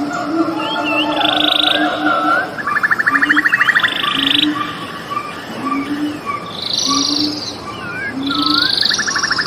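Frogs and birds calling together. Short low croaks repeat about once a second under bird song made of whistled up-and-down glides and buzzy trills.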